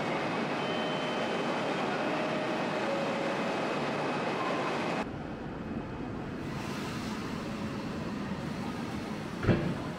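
Subway train standing at a platform, its onboard equipment running steadily with a few faint thin tones. The sound drops off abruptly about halfway through. A single sharp knock comes near the end.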